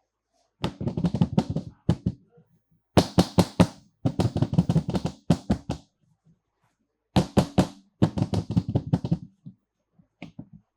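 Small toy cars clattering, in several bursts of rapid clicks and knocks with pauses between, and a few faint taps near the end.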